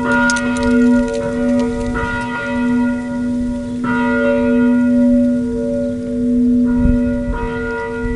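Swinging church bell rung full circle in the Italian 'a distesa' style, its clapper striking afresh about every one to two seconds over a long, humming ring that carries between strokes. A few sharp metallic clinks come right at the start.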